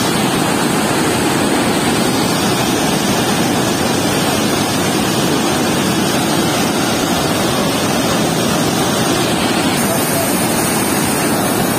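Floodwater rushing out from under a weir's sluice gate and churning into white water: a loud, steady rushing noise.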